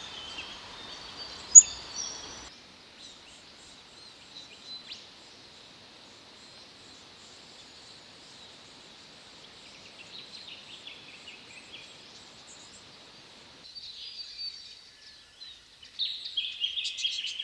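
Wild forest birds calling and chirping in short scattered notes, busier in the last few seconds, with one sharp loud note about a second and a half in.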